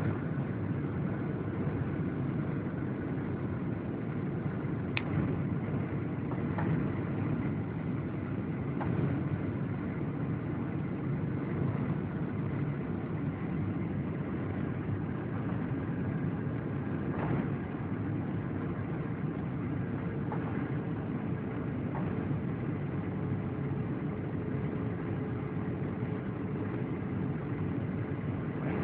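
Steady cabin noise inside a Boeing 737-800 descending to land: the low rumble of its CFM56 turbofan engines mixed with airflow over the fuselage. A faint steady hum joins about two-thirds of the way through, and a few faint clicks sound from the cabin.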